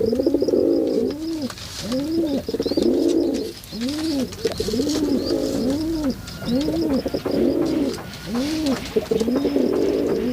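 Pigeons cooing, several birds overlapping: repeated low rising-and-falling coos, one or two a second, with throaty rolling stretches between them.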